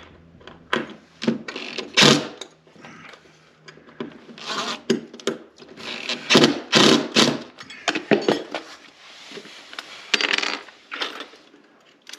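Hand tools and small metal hardware clinking and knocking: irregular sharp clatters and rattles of metal being handled.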